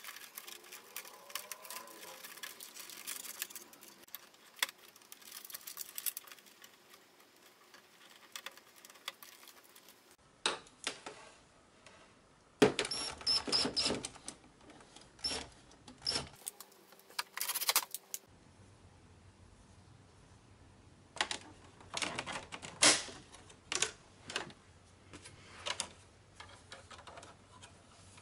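Plastic parts and mechanism of a Brother MFC-J425W inkjet printer being handled and fitted back together: irregular clicks, knocks and rattles.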